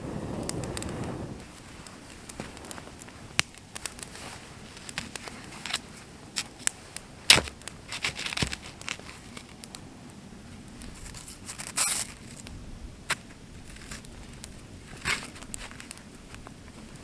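Small wood campfire crackling, with irregular sharp pops, the loudest about seven seconds in, and a short soft rush in the first second.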